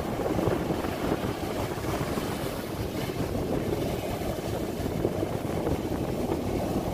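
Heavy storm surf breaking and washing up the beach, with strong wind rumbling on the microphone.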